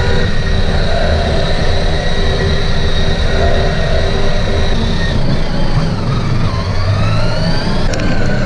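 Child's ride-on toy car driving along a hallway: a steady low rumble of its wheels on the floor under a whine from its motor. The motor's whine rises in pitch in the second half.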